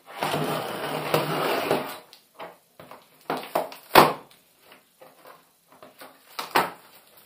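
Packing tape on a cardboard TV carton being slit open with a screwdriver tip: a scratchy rasp lasting about two seconds, then scattered knocks and taps of hands and tool on the box, the sharpest one about four seconds in.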